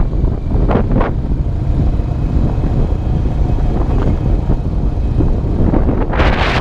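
Honda Rancher 350 ATV's single-cylinder engine running under way, a steady low rumble mixed with wind buffeting the microphone. Louder hissing bursts come about a second in and again near the end.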